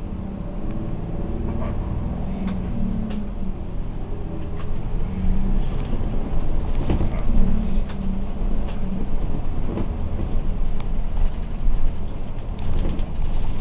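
Inside a Hokuriku Railway city bus under way: engine running with road noise, growing a little louder over the first few seconds. Scattered sharp clicks sound over it.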